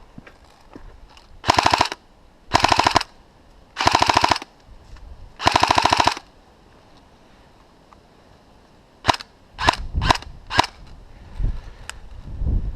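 Airsoft gun firing four short full-auto bursts of rapid clicking shots in quick succession, then a handful of single shots a few seconds later.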